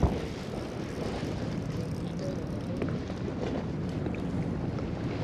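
Wind buffeting the microphone over the steady wash of the sea, mostly low in pitch, with one short knock at the very start.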